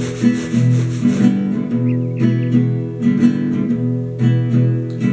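Acoustic guitar strummed in steady rhythmic chords. Over the first second or so a regular swishing noise, about five strokes a second, plays along with it and then stops.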